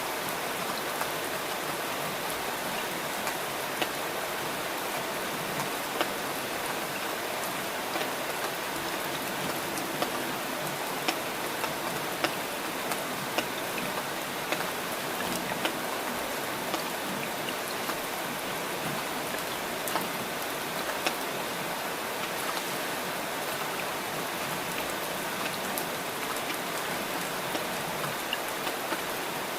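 Steady rain falling, with scattered louder drops landing close by as sharp ticks.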